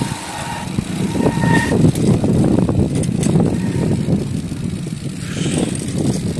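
Wind buffeting the microphone and tyre and road rumble while riding a bicycle, a continuous rough low noise that rises and falls in gusts.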